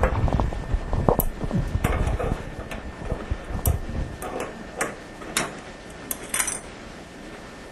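A metal wrench clicking and clinking against the chrome supply-line nut and shut-off valve as the toilet supply line is loosened. There is handling rumble over the first few seconds, then scattered sharp ticks that stop about six and a half seconds in.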